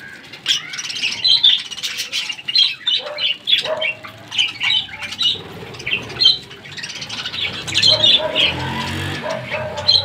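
A flock of budgerigars chattering and squawking, with many short, high calls overlapping without a break.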